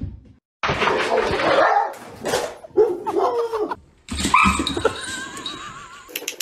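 Dogs barking and whining in several separate bursts, starting about half a second in and pausing briefly near the middle.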